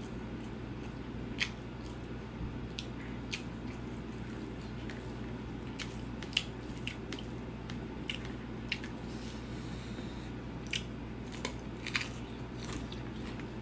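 Close-up eating sounds of rice and curry eaten by hand: wet chewing and mouth clicks, with fingers squishing rice, as scattered sharp clicks that come thicker near the end. A steady low hum runs underneath.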